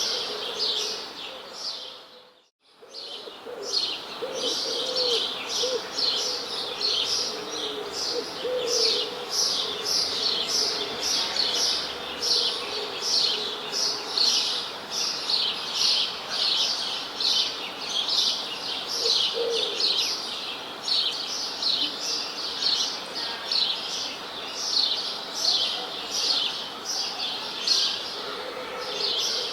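Birds chirping: a steady run of quick, high chirps, about two a second, with a few lower calls beneath. The sound briefly drops out about two seconds in.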